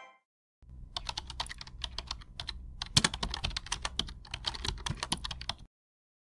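Computer keyboard typing: a quick, uneven run of key clicks with a couple of short pauses, stopping about half a second before the end.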